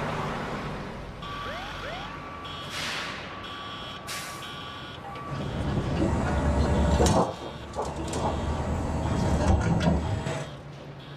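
Armored truck at a delivery: a steady warning beep sounds over the first few seconds, broken by two short hisses, then the truck's engine rumbles louder for several seconds.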